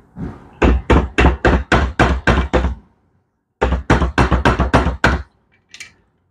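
A mallet striking a motorcycle piston in quick, even blows, about four a second: a run of about nine, a short pause, then about seven more.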